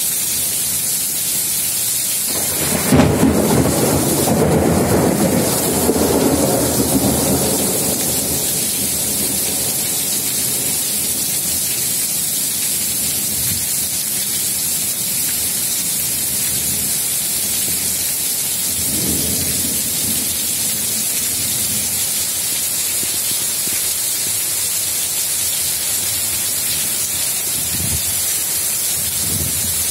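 Heavy rain falling in a steady hiss. About three seconds in, a loud roll of thunder starts sharply and rumbles on for several seconds, with fainter rumbles later.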